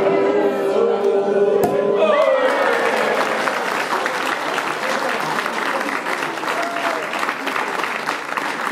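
A sparkling-wine cork pops a little under two seconds in, ending a long drawn-out 'ooh' held by voices. The crowd then breaks into applause, which carries on steadily.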